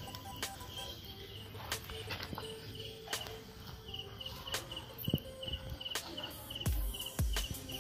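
Cricket chirping in a steady run of short high chirps, with scattered sharp pops and crackles from the charcoal under the grilling chicken and a few low thumps near the end.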